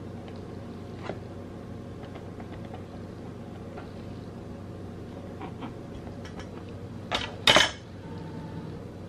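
A knife cutting a slice of white bread on a plastic cutting board, with a few faint ticks, over a steady low hum. A little after seven seconds in come two short, louder clatters as the knife is set down on the board.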